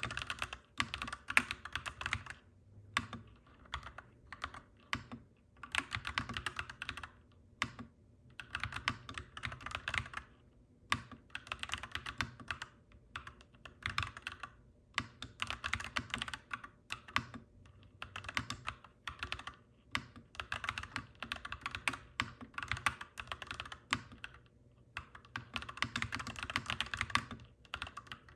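Clacky mechanical keyboard being typed on steadily, rapid key clicks coming in bursts with short pauses between them. A faint steady low hum runs underneath.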